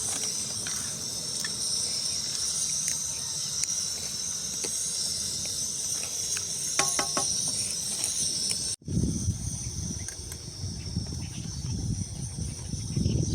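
Insects chirring steadily in a high-pitched hiss. About two-thirds of the way through the sound cuts off abruptly, and a low outdoor rumble follows under a fainter chirring.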